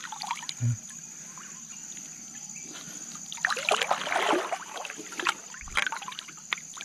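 River water sloshing and splashing as hands work a fishing gill net in the water, with a denser run of splashing in the middle and a few sharp splashes after it.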